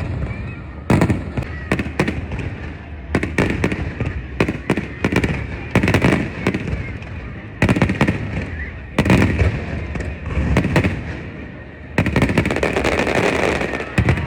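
Aerial fireworks exploding in repeated volleys of sharp bangs in quick succession, with a long dense run of bangs near the end.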